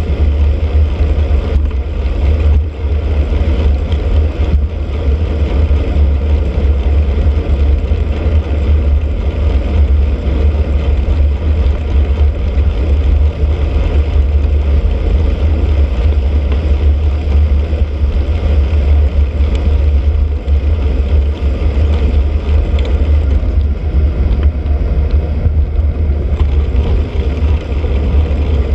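Steady, loud low rumble of wind buffeting the microphone of a bicycle-mounted camera while riding, mixed with the hiss of tyres and road vibration on a wet path.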